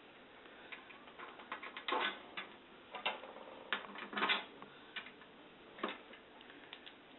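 Irregular clicks and knocks of the platform clips being fitted into place on an overhead projector, with a few louder clacks about 2, 3, 4 and 6 seconds in.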